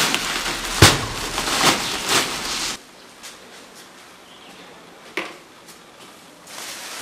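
A large plastic sack of sugar crinkling and rustling as it is gripped and hauled, with a sharp hit about a second in. The rustling cuts off suddenly near three seconds, leaving quiet with a single short knock.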